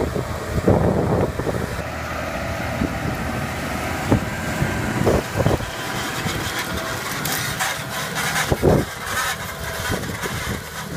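Large farm tractor's engine running steadily under load as it pulls a dragline manure-injection toolbar through the soil, with a few brief louder bursts of noise.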